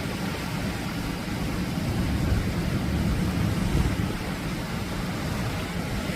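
Atlantic surf washing onto a beach: a steady rushing noise with a heavy, unsteady low rumble.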